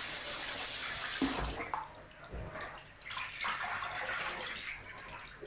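Kitchen tap running into a plastic sieve of couscous grain while a hand swishes it; the flow stops about a second and a half in, and water then drains, drips and sloshes out of the sieve.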